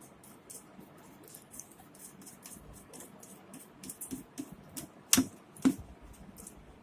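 Small clicks and taps from hands handling and fitting a satellite receiver circuit board, with two sharper knocks a little after five seconds in.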